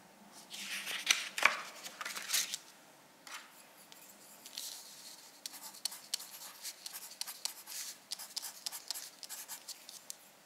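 Scratchy rubbing strokes of a drawing tool across the drawing surface. A few longer, louder strokes come in the first couple of seconds, then a run of many quick short strokes.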